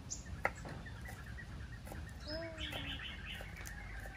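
Small birds chirping and twittering, with a quick run of twitters in the middle. Near the start come two sharp taps of a kitchen knife on a wooden cutting board as green onion is chopped.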